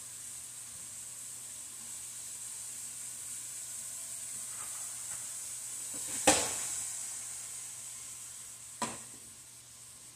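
Steak strips sizzling in a nonstick frying pan, a steady hiss of frying. About six seconds in comes a sharp clack as metal tongs are set down on the counter, the loudest sound, and a lighter knock follows a couple of seconds later.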